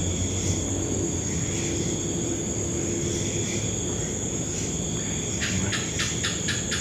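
A steady high insect trill, with a house gecko (cicak) breaking in about five seconds in with its rapid chirping call, about five chirps a second.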